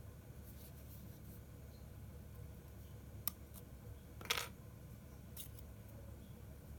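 A few faint small clicks and one louder short click-scrape about four seconds in, from a SIM ejector pin being pushed into an iPhone 6s to pop out its SIM tray.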